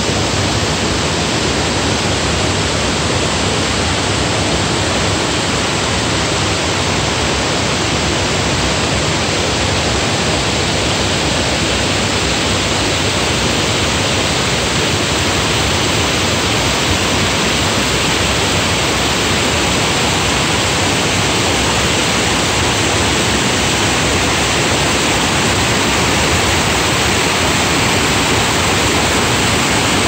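A waterfall and the rocky stream below it rushing: a loud, steady, unbroken noise.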